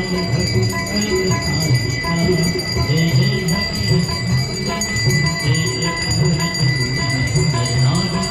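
Hand bells ringing continuously over devotional aarti music.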